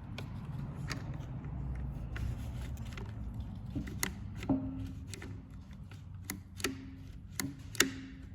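Irregular light clicks and knocks of a small chainsaw's parts being handled and worked by hand, a few with a brief ring, over a steady low hum.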